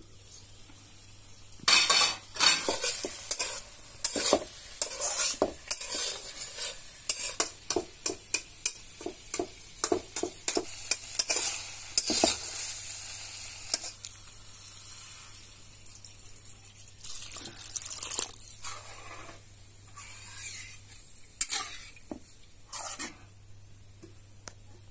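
A metal spoon scraping and clinking against a cooking pan as food is stirred, with a steady sizzle underneath. The strokes come quickly and repeatedly for about twelve seconds, pause, then return a few more times near the end.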